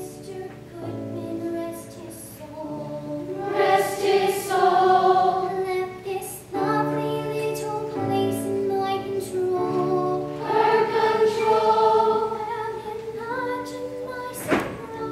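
Young voices singing together in sustained, held notes, with a single sharp knock near the end.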